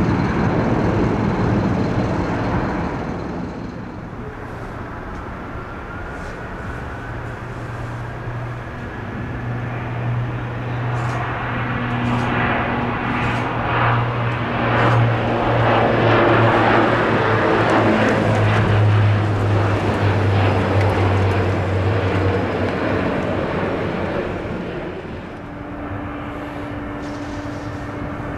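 Bombardier Dash 8 Q400 turboprop taking off: a deep, steady propeller drone with engine whine swells to a peak and then fades as the aircraft passes. Before it, the tail of a jet airliner's take-off roar dies away. Near the end the drone gives way to a steady, lower-level hum.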